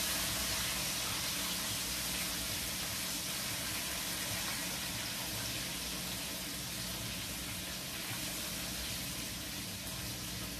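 Chicken frying in hot oil in a pot: a steady sizzle that eases off slightly.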